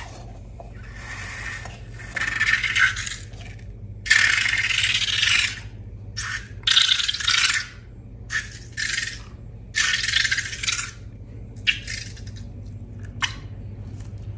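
Slime being squished and worked by hand: about ten separate crackly, hissy bursts, some brief and some lasting over a second, over a steady low hum.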